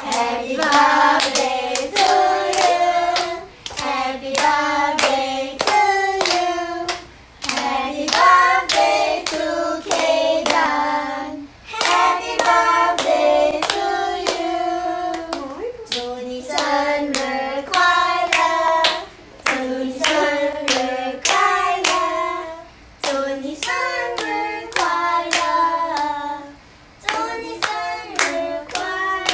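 Voices singing a birthday song together in a small room, with hands clapping along in time. The song comes in phrases of a few seconds, with short breaks between them.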